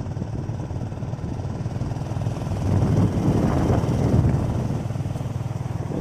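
Steady low rumble of a moving vehicle's engine and road noise, heard from on board.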